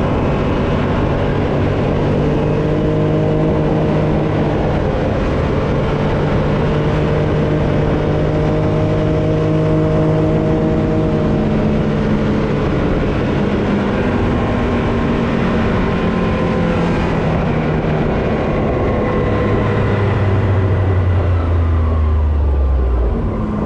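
Can-Am Maverick X3 Turbo RR's turbocharged three-cylinder engine running hard at a steady pitch while driving at speed on the road, with wind and tire noise. Near the end the engine note drops and the loudness dips briefly.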